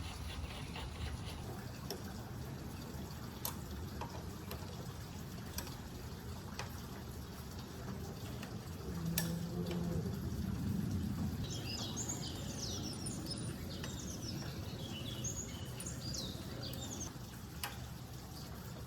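Steady low background noise with a few sharp, isolated clicks, and birds chirping rapidly for several seconds from a little past the middle.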